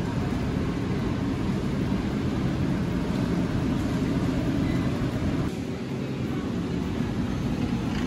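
Shopping cart rolling over a concrete store floor: a steady low rumble and rattle of its wheels, easing somewhat about two-thirds of the way in.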